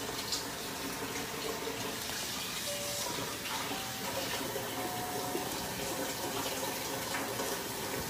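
Steady rush of water running from a kitchen tap, with a few faint short pitched notes in the middle.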